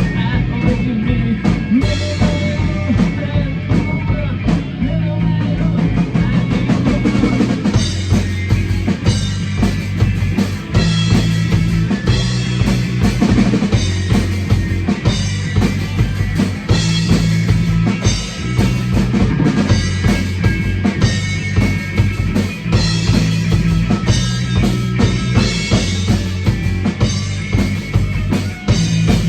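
Rock music with a drum kit, its bass drum and snare keeping a steady driving beat.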